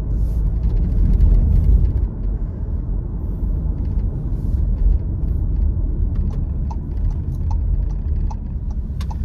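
Steady low rumble of a car's engine and road noise, heard inside the cabin of a moving car. From about six seconds in, a faint regular ticking joins, about two ticks a second.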